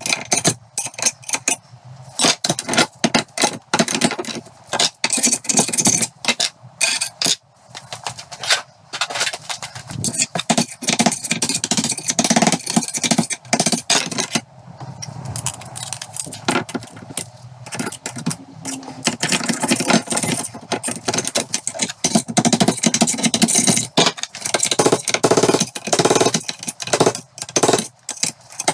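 Hammer blows on a punch driven into the steel top suspension arm of a classic Mini held in a bench vice: sharp metal-on-metal knocks in quick irregular runs, breaking up the old needle roller bearing to get the little needles out.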